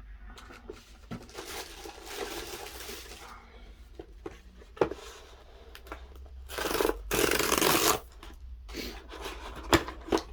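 Cardboard and paper packaging of a new smartwatch box being handled and torn open: scraping and rubbing, a few sharp clicks, and a louder tearing noise lasting over a second about seven seconds in.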